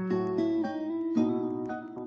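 Instrumental background music: a melody of separate pitched notes, each one starting sharply and then dying away, with no singing.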